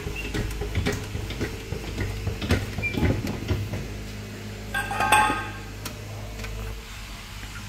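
Scattered metallic clinks and knocks of metal parts and tools, with one brief ringing clang about five seconds in, over a steady low hum.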